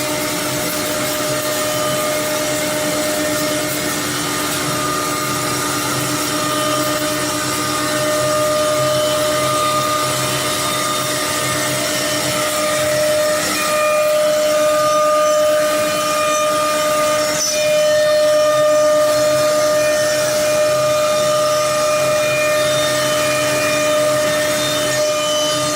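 CNC router spindle running at speed with a steady, high-pitched whine over machine noise.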